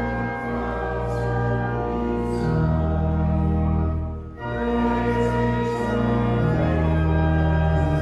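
Church organ playing a hymn tune in slow, held chords, with a brief break between phrases about four seconds in.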